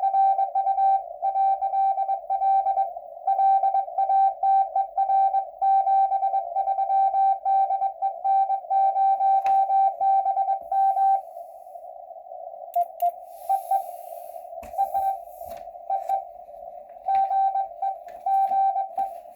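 Morse code received on an amateur-radio receiver: a steady tone keyed in dits and dahs over a narrow band of hiss, coming through the receiver's CW filter. A strong station sends until about 11 seconds in. After that only the hiss goes on, with weaker keyed tones and scattered clicks and crackles.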